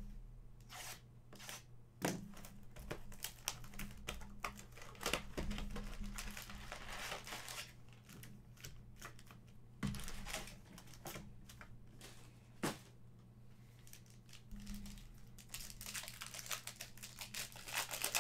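Plastic wrapping on a box of Panini Mosaic Fast Break basketball cards being torn and crinkled as it is opened, with a few knocks from handling the box.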